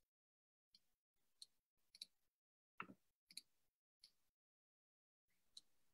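Near silence broken by about eight faint, short clicks at irregular intervals.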